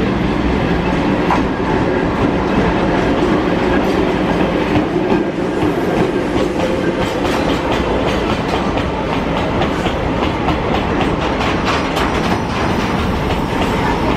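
Chichibu Railway freight train rolling past, its wagon wheels clattering over the rail joints in a steady run of clicks that grows denser from about six seconds in.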